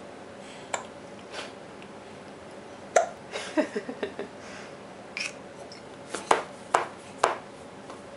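Baby hiccuping: a series of short, sharp hiccups, the loudest about three seconds in and three more in quick succession near the end, with a few brief soft vocal sounds just after the loudest one.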